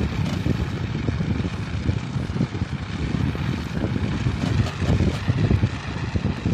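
Kia Seltos suspension creaking and knocking in hard frost, around −20 to −25 °C, over an uneven low rumble of the car on the road. The owner blames the cold for the creaking chassis.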